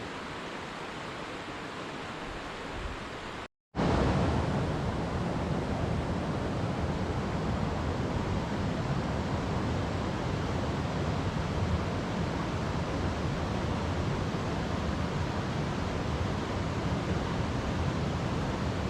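Steady rush of running water. It cuts out for a moment about three and a half seconds in and comes back louder, with a heavier low rumble.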